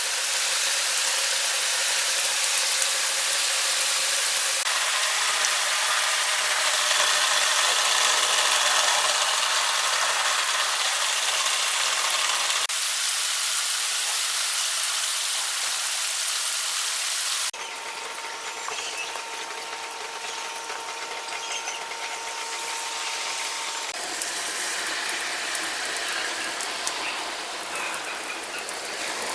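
Heavy rain, heard as a steady high hiss and played back sped up, with abrupt changes where the clips are joined; the biggest is a drop in level a little past halfway.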